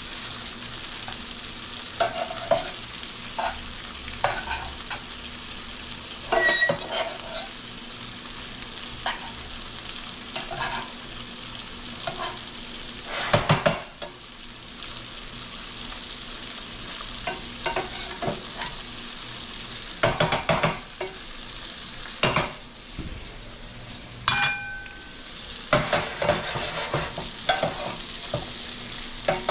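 Extra-jumbo shrimp sizzling in garlic, oil and butter in a skillet while metal tongs turn them. The tongs clink and scrape against the pan now and then, loudest a little after 13 seconds and around 20 seconds, with one short metallic ring near 24 seconds.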